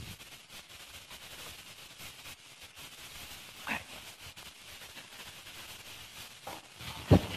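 Faint steady hiss of room tone, with a brief sound about halfway through and a sharp thump near the end.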